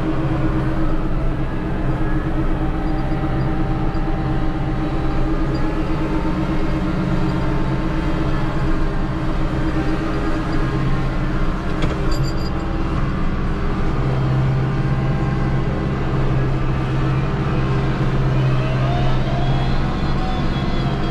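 Kubota L6060HSTC tractor's four-cylinder diesel engine running steadily, heard from inside the closed cab, with the front-mounted rotary broom spinning and sweeping snow. A single click about twelve seconds in, and a rising whine near the end.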